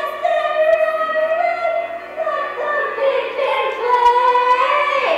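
A teenage girl singing a solo number from a stage musical, holding long notes between shorter phrases.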